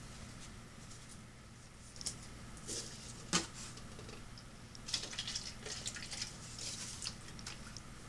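Water being poured onto pepper plants in pots: faint, irregular dripping and pattering with rustles, a sharp click about three and a half seconds in, and a busier patch of small splashes and rustles in the second half.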